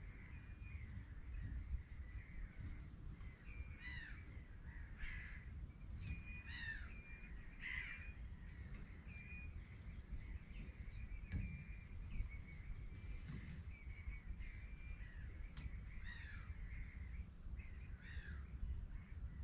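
Birds calling repeatedly: about a dozen short calls scattered through, with brief high piping notes between them, over a steady low rumble.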